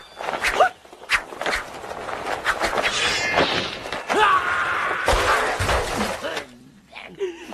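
Staged martial-arts fight sound effects: a rapid run of sharp hits and whooshes mixed with shouts and pained cries, a short ringing clash about three seconds in and heavy thuds a couple of seconds later, falling quieter near the end.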